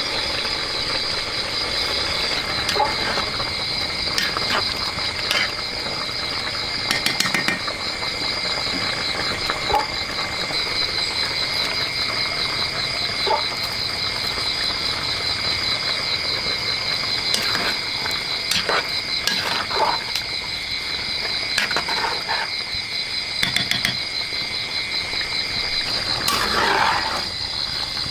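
Steady high-pitched trilling of insects, with scattered short clicks and knocks throughout.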